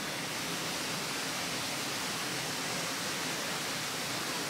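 Steady rushing water, an even, unbroken hiss.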